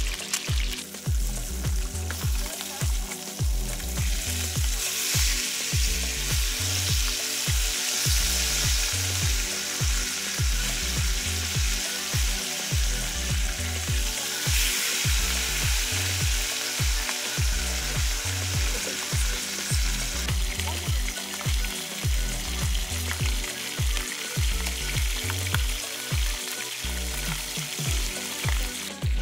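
Whole sea bass frying in hot oil in a pan: a steady crackling sizzle, strongest through the middle, over background music with a regular low beat.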